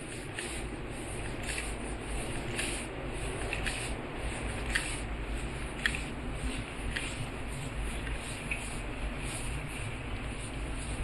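Footsteps on pavement at a steady walking pace, about two steps a second, over a low steady rumble.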